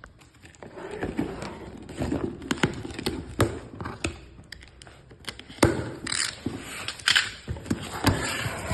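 A parcel being opened by hand: packaging rustling and crinkling, with scattered sharp taps and knocks.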